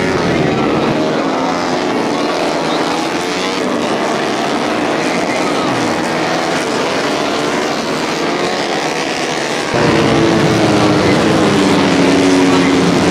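Racing 150cc four-stroke underbone motorcycles at high revs, their engine pitch rising and falling as they pass. The sound gets louder about ten seconds in.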